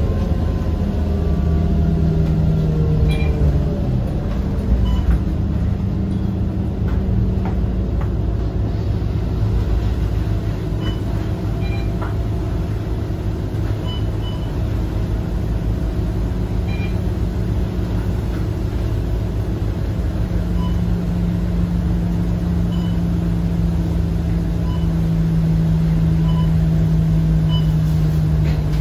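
Scania K230UB bus's diesel engine, its note falling as the bus slows over the first few seconds, then running steadily, with a stronger steady tone from about twenty seconds in. Faint short high beeps recur now and then.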